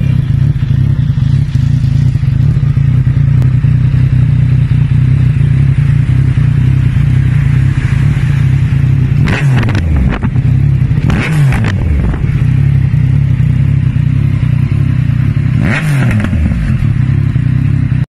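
Yamaha XSR900's three-cylinder engine idling through an Akrapovic full-system exhaust. It is blipped three times, the revs jumping and falling back to idle: twice about halfway through and once near the end.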